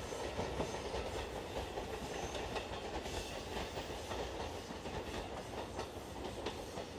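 Electric local train running away down the line, its wheels clicking over the rail joints, the sound slowly fading as it recedes.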